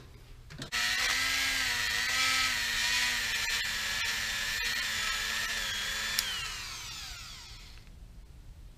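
A corded rotary tool with a small wire brush scrubbing out the barrels of a pressure washer pump. It switches on about a second in and runs with a steady high whine over a scratchy hiss. Near six seconds it switches off, and the whine falls away as the tool spins down.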